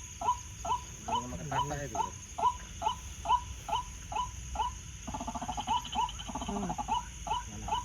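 White-breasted waterhen's repeated 'ruak' call, one short note a little over twice a second in a very even rhythm.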